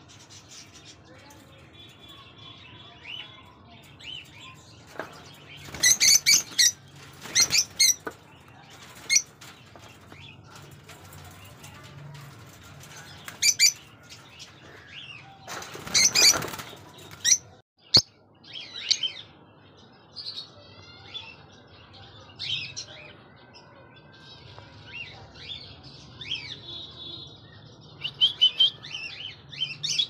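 Rosy-faced lovebirds flapping their wings in an aviary cage: two flurries of wingbeats, one a few seconds in and one past the middle. High-pitched chirping runs throughout and grows busier in the second half, with a single sharp click about halfway.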